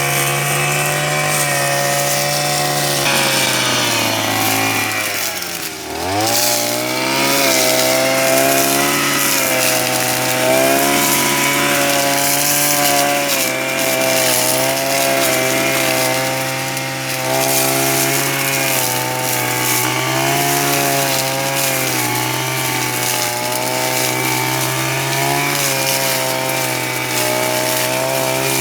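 Husqvarna 143R-II two-stroke brushcutter running at high throttle, cutting grass with nylon trimmer line, its engine note wavering as it works. About five seconds in the revs drop as the throttle is eased off, then climb quickly back to full speed.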